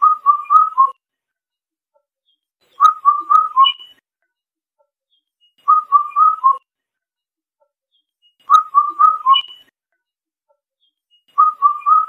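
Indian cuckoo singing its four-note whistled song, the last note lower than the first three, repeated about every three seconds.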